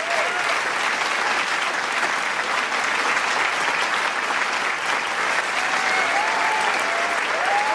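Large crowd applauding: dense, steady clapping mixed with cheering. A few cheering voices rise above the clapping near the end.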